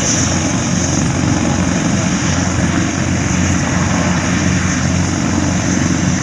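Propeller aircraft engine running, a loud steady drone with a constant low hum.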